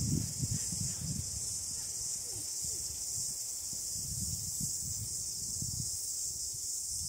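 Steady high-pitched insect chirring in the outdoor background, over irregular low rumbles.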